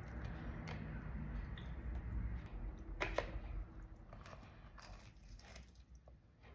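Close-up chewing of breaded fried mozzarella sticks, with soft crunches and mouth smacks, one sharper crunch about three seconds in, growing quieter toward the end.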